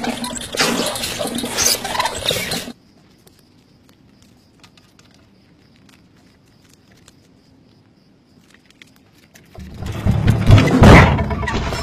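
A hamster exercise wheel spinning and rattling fast, which cuts off sharply under three seconds in. Then faint scattered ticks, until a loud, heavy low thump and rumble near the end.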